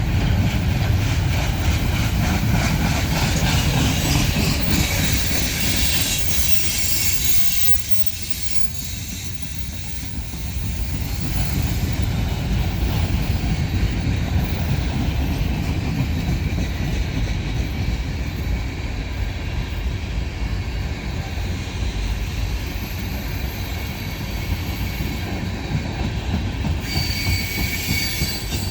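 Freight train rolling past: a steady rumble and clatter of steel wheels on the rails, with a thin high wheel squeal near the end.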